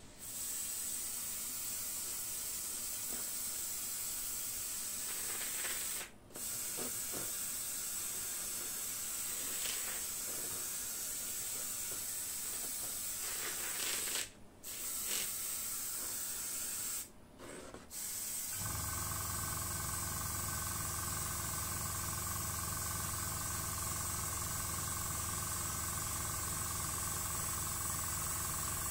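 Airbrush spraying paint: a steady hiss of air that cuts out briefly three times as the trigger is let off. About two-thirds of the way through, a steady machine hum starts and runs on under the hiss.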